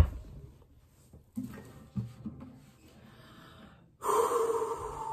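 Acoustic guitar being handled into playing position, with a loud bump at the start and a few faint knocks. About four seconds in comes a sudden sharp intake of breath, its pitch sliding slowly down, just before the song begins.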